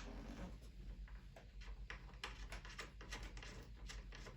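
Faint, irregular light clicks and ticks as a stainless steel screw is hand-tightened into an amp cabinet.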